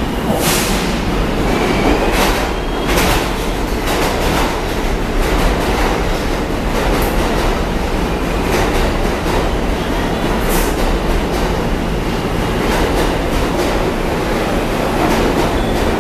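R160 subway train pulling out of the station, its cars rolling past close by with a loud, steady running noise and repeated clacks of wheels over the rail joints.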